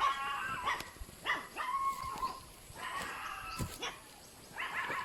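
An animal calling in about four short, whining cries, a few of them held briefly at one pitch.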